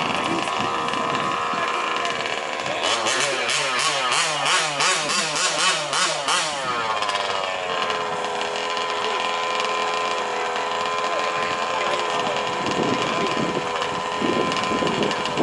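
Several 1/5-scale two-stroke petrol RC truck engines running, their pitches rising and falling across each other for a few seconds, then settling to a steady drone.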